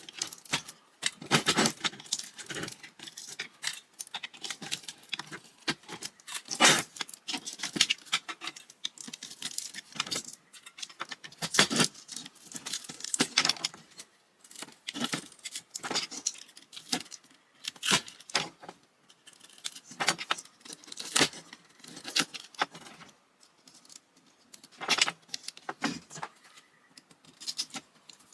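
Small metal parts and hand tools clinking, clattering and rattling as a ceiling fan is dismantled for scrap, in irregular bursts of sharp clinks.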